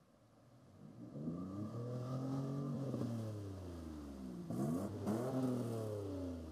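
Pickup truck engine revving as the truck drives out of a mud puddle and past close by. The revs climb, ease off, then climb again about two thirds of the way through before falling away.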